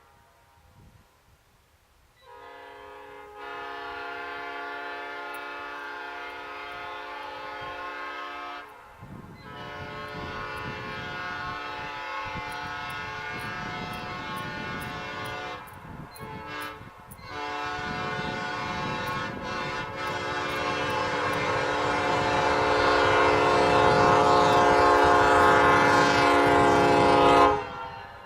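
Locomotive air horn blown on compressed air in three long blasts, several steady notes sounding together. The last blast is the longest and grows louder before cutting off.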